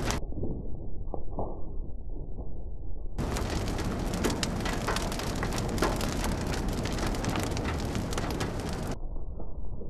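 Heavy rain pattering on a car's roof and windshield, heard from inside the vehicle as a dense hiss full of sharp drop hits. It sounds muffled for the first three seconds, then comes through clear and crackly.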